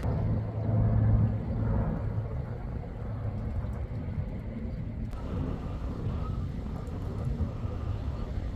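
Low engine rumble of a passing motor vehicle, loudest in the first two seconds, over steady outdoor background noise.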